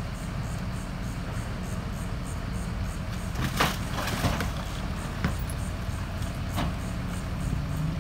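Freightliner M2 rear-load garbage truck's engine idling steadily, with trash cans banged against and emptied into its McNeilus hopper: a clatter of knocks and falling trash about three and a half seconds in, then two sharper knocks.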